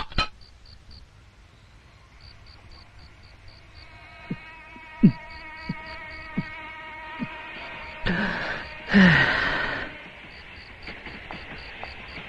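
Night insects chirping in a steady pulsing rhythm. A few short gulps come while a can drink is swallowed, then a loud breathy sigh near the end.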